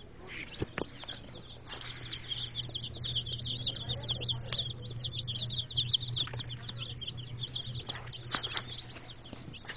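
Dozens of baby chicks peeping together in a brooder: many short, falling chirps overlapping in a dense chorus that thins near the end. A low steady hum runs underneath, with a few light knocks.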